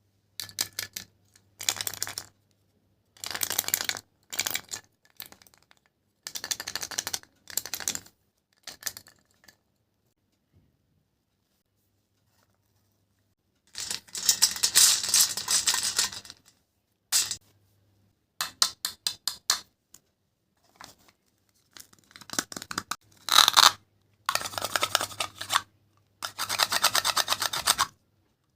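Cutting: quick rasping, scraping strokes in short bursts with pauses between them, and a few seconds of silence in the middle.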